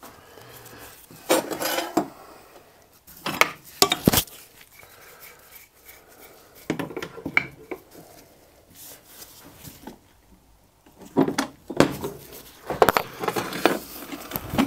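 Steel spanners clinking on the nuts and cast-iron body of a steam waggon regulator valve as it is dismantled, with tools clattering on a metal bench. The clinks come a few at a time, with a busier run of them near the end.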